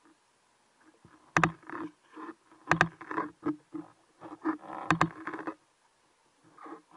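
Underwater sounds of a freediver swimming with a speargun: a run of short muffled knocks and rubbing noises, with three sharp clicks, at about a second and a half, just under three and about five seconds in. Quiet for the last second or so.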